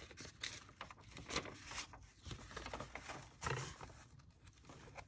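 Rustling and crackling of old paper pages being handled and leafed through, in a run of short, irregular scuffs and taps.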